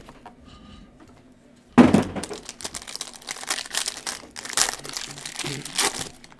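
Plastic-foil trading card pack wrapper being torn open and crinkled by gloved hands, a dense crackle starting sharply a little under two seconds in.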